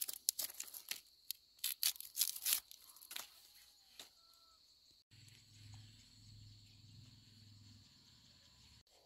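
Dry bamboo being torn into strips by hand: a quick run of sharp tearing and snapping crackles over the first three seconds. After about five seconds, a steady high insect drone with a low rumble beneath it.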